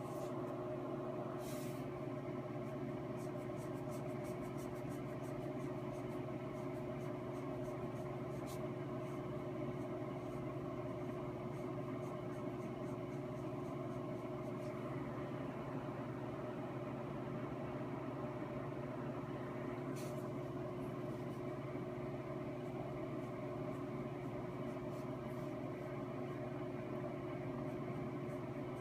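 A steady mechanical hum with a few fixed tones that holds level throughout, with a few faint short clicks, one near the start and one about two-thirds through.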